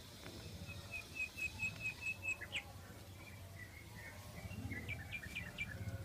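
A small bird chirping: a quick, even run of about seven short high notes in the first two seconds, ending in a short falling note, then a looser series of chirps near the end. A low rumble runs underneath.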